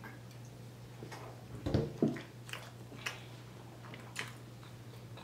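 Close-up eating sounds: chewing cornbread with scattered short mouth clicks, and one brief lower, louder sound a little under two seconds in. A steady low hum runs underneath.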